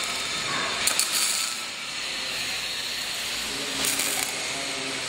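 Metal-fabrication shop noise: a steady hiss with metallic clinks and clatter, and two brief louder bursts, about a second in and near four seconds.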